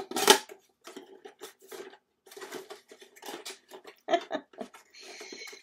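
Handling noise from a cardboard-packaged vinyl record being picked up and turned over in the hands: a sharp knock right at the start, then scattered light taps, rustles and rubs, with a short hissing scrape near the end.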